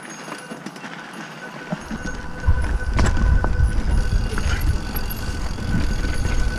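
Mountain bike rolling down a dirt singletrack: a low rumble of tyres and air rush builds from about two seconds in, with a few sharp knocks from the bike over bumps.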